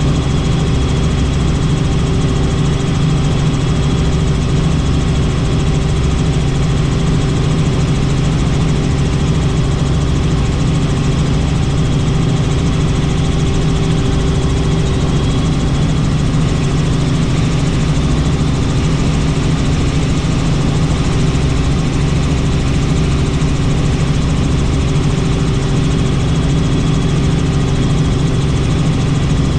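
Helicopter turbine and rotor running in flight: a steady, loud drone of constant pitch that does not change.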